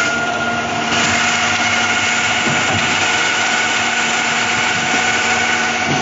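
Electric-motor trailer concrete pump running steadily while being fed concrete, a continuous machine drone with a constant high whine over it.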